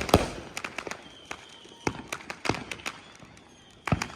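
Consumer fireworks going off: an irregular run of sharp bangs and smaller crackling pops, with the loudest reports near the start, near the middle and just before the end.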